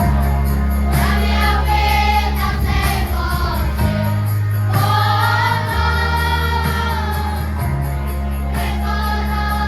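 Children's choir singing with instrumental accompaniment: held bass notes change chord every couple of seconds under the voices, with a light jingle of tambourine.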